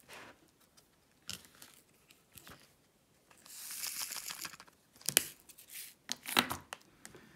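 Loose resin diamond-painting drills pouring and rattling in a plastic drill tray, a high hiss lasting about a second and a half midway. A few sharp plastic clicks follow near the end.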